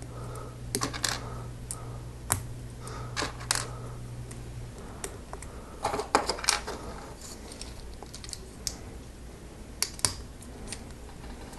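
Small plastic LEGO bricks and pieces clicking and rattling as they are handled and snapped together, in scattered sharp clicks. A steady low hum runs under the clicks until a little before halfway.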